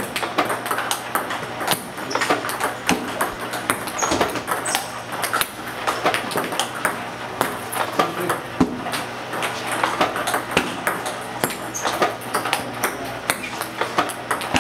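Table tennis rally against a ball-feeding robot: a steady run of sharp clicks as the celluloid ball is struck with topspin loops off the paddle and bounces on the table, over and over.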